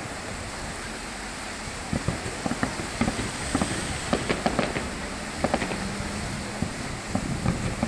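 Distant fireworks bursting: an irregular run of pops and bangs starting about two seconds in, over a steady background hiss.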